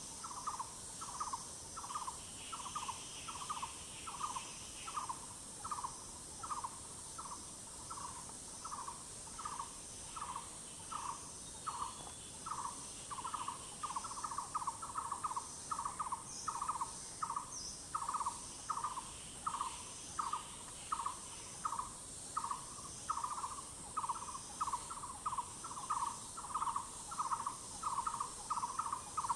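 A forest bird calling in a long, even series of short notes, about two a second, coming faster near the end. A steady high insect drone runs under it.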